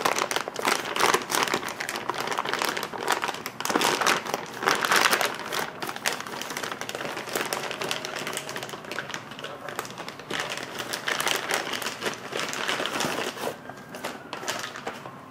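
Packaging wrap crinkling and rustling as it is pulled open by hand, in irregular crackles that ease off over the second half. A faint siren glides up and down near the end.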